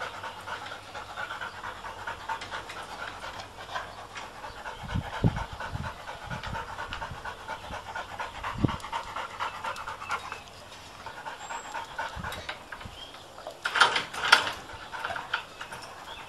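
A Labrador panting steadily, with a few low thumps in the middle and a short, louder clatter of sharp knocks near the end.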